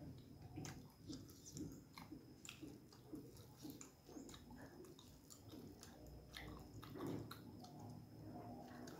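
Faint close-up chewing of a mouthful of soft food, soft wet mouth sounds repeating at a steady rhythm of about two to three chews a second.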